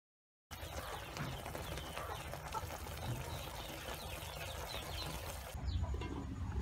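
Pork ears and offal braising in a thick palm-sugar caramel sauce in an aluminium pot, the sauce bubbling and sizzling with many small pops as it cooks down. About five seconds in this gives way abruptly to a low rumble.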